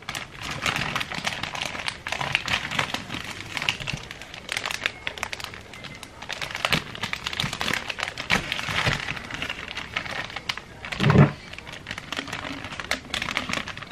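Plastic gallon zipper bag crinkling and rustling in irregular bursts as a paper-towel-wrapped loaf is worked into it, with one heavier thump about three-quarters of the way through.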